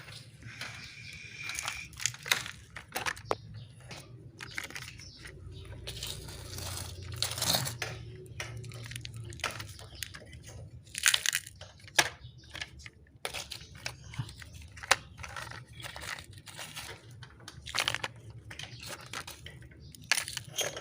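Small stones and sand being scooped by a toy excavator and poured into a toy truck: irregular crunching and scraping with pebbles rattling and clicking against plastic.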